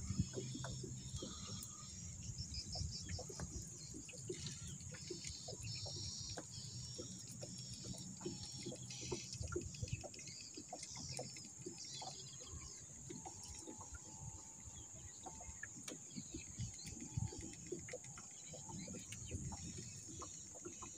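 Faint bird calls over quiet outdoor ambience, with scattered small clicks and knocks of fishing tackle being handled in a small aluminium boat.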